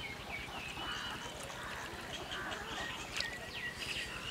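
Waterfowl honking: a scatter of short, separate calls.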